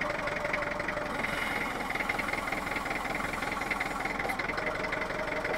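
Lansing Bagnall FODR6 forklift running steadily while its hydraulics work the freshly resealed tilt cylinder back and forth to bleed the air out of it.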